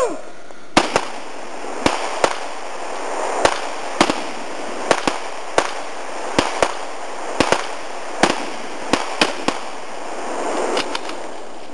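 Pressurised white-powder discharge, most likely a dry-chemical fire extinguisher emptying: a steady hiss, with many sharp cracks at uneven intervals over it.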